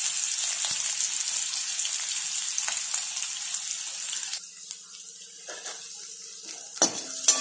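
Green chillies and crushed garlic sizzling in hot oil in an aluminium kadai, a steady hiss that drops away sharply about four seconds in. Two sharp knocks near the end.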